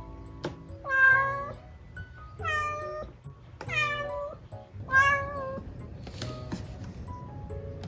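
Domestic cat meowing four times, drawn-out calls each under a second long, a second or so apart.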